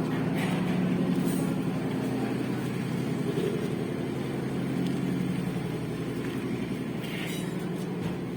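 An engine running steadily at an even speed, a low hum with a little noise above it, easing slightly near the end.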